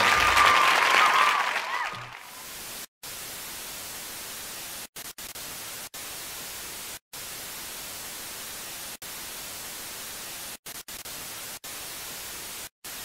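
Dance music fades out over the first two seconds, then a steady static hiss with several brief cut-outs, an old-film noise effect.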